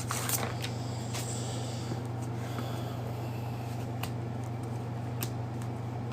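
Steady low room hum, like a fan or air conditioner running, with a few faint light clicks scattered through it.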